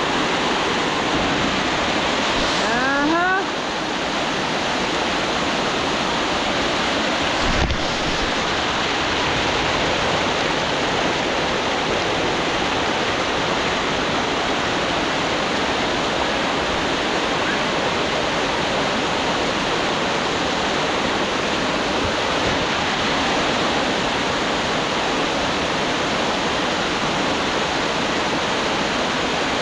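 Waterfall running at high flow: a steady, dense rush of water pouring over the falls, with a brief low bump near eight seconds.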